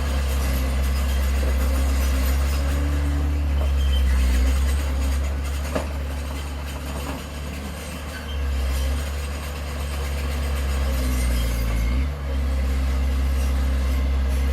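Heavy construction machinery's diesel engine running steadily, its pitch shifting now and then under changing load. A single sharp knock comes a little before halfway.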